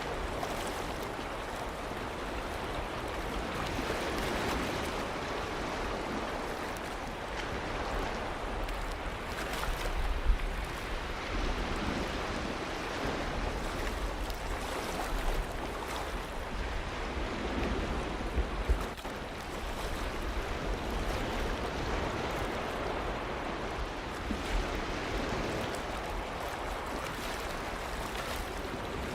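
Ocean surf: waves breaking and washing ashore in a continuous rush that swells and eases every several seconds.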